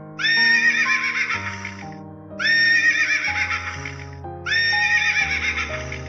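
Horses whinnying: three long whinnies in a row, each nearly two seconds long with a shaky, quavering tremble. They sit over background music of sustained notes.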